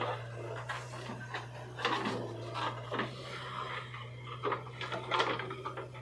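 JCB 3DX backhoe loader's diesel engine running steadily, under irregular knocks and clatter of soil and clods falling from the backhoe bucket and the bucket working the dirt heap.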